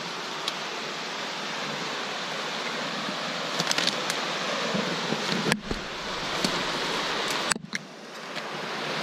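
Steady rush of a fast-flowing river, with a few sharp crackles of twigs and brush being pushed aside about four and five and a half seconds in. The sound briefly drops out twice in the second half.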